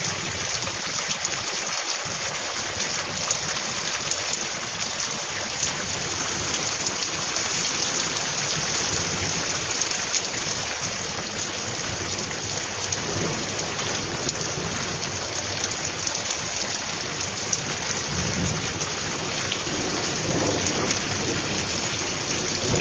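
Heavy rain pouring down onto a flooded road and standing water: a steady, dense hiss of the downpour.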